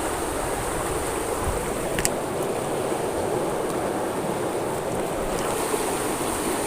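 Fast-flowing river current rushing steadily, with one short click about two seconds in.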